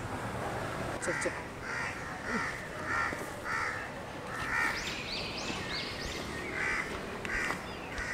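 Crows cawing over and over, about two caws a second, with a few higher bird chirps among them.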